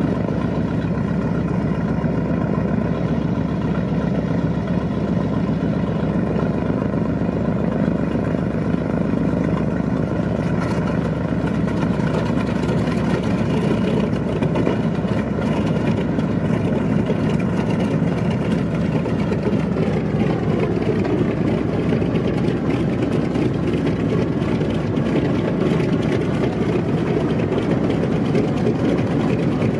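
B-25 Mitchell's Wright R-2600 radial engines running steadily at low power just after start-up. About twenty seconds in, the engine note drops a little in pitch and then holds.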